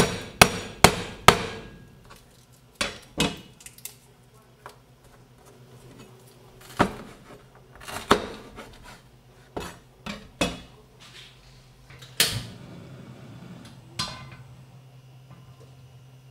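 Kitchen cleaver chopping a red chili on a wooden cutting board: a quick run of chops about two a second at the start, then single chops a second or more apart.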